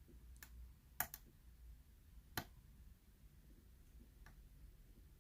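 Faint, scattered metallic clicks of a lock pick working the pins of the Albert Lebels "Savage" challenge lock under tension. There are a handful of single clicks, the loudest about a second in and again near two and a half seconds, with near silence between them.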